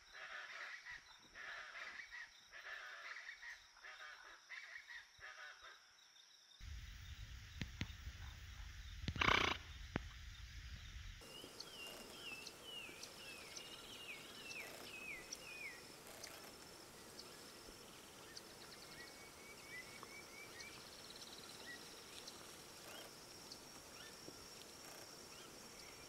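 Wild outdoor animal sounds in changing sections: scattered calls at first, then one loud, low pitched call about nine seconds in over a low rumble. After that comes a quick run of descending chirps and a steady high trill with occasional ticks.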